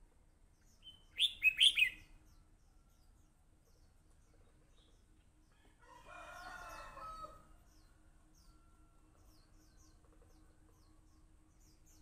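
Red-whiskered bulbul giving a short burst of loud whistled song notes about a second in. A fainter, lower bird call follows around the middle, with faint high chirps throughout.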